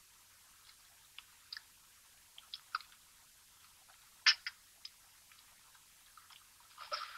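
A man eating beans ravenously: a spoon clicks and scrapes in a metal pan, and wet chewing and smacking sounds come between, with a sharper click about four seconds in and a denser run of chewing near the end.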